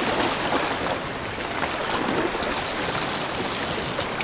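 Ocean water washing along the shore, a steady hiss with no letup.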